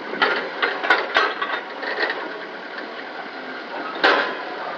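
A quick run of sharp knocks and clicks over steady background noise, then one louder knock about four seconds in.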